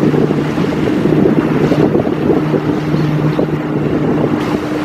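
Small sightseeing boat's engine running with a steady low hum, with wind buffeting the microphone.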